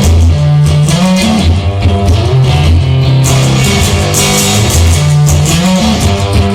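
Instrumental rock music: guitars playing over a steady bass line, with no vocals.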